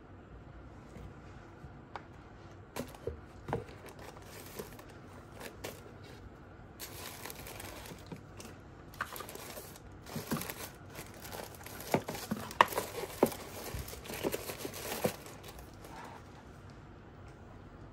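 Tissue paper rustling and crinkling as cardboard boxes are handled, with scattered light taps and knocks of the card parts. The crinkling is busiest in the second half, where the sharpest knocks fall.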